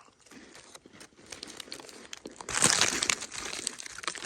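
Plastic biscuit packet crinkling as it is handled, with a louder rustle of the wrapper about two and a half seconds in.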